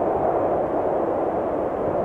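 Steady wind blowing, a deep, even rushing noise with no gusts or breaks.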